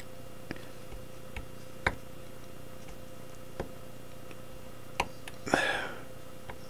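Scattered small sharp clicks, about six over several seconds, as a graver chips slivers of steel out of the background of a maker's mark punch, over a faint steady hum; a brief breathy hiss near the end.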